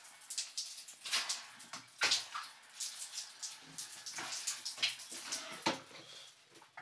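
Irregular rustling, crackling and scraping of plastic as hands handle the filter cartridges, tubing and protective film inside a water purifier cabinet.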